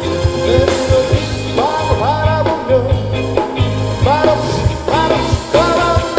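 A live rock band: a man sings lead into a microphone, strumming an amplified acoustic guitar, over a drum kit. He sings several phrases, each sliding up into its notes.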